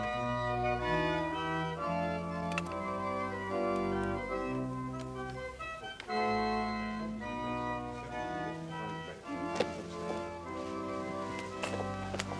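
Organ music: slow chords of held notes, with a few short taps about ten seconds in.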